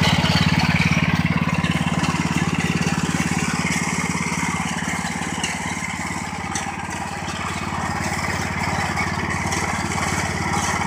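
Harbor Freight Predator 14 hp single-cylinder engine on a garden tractor running steadily at a constant speed.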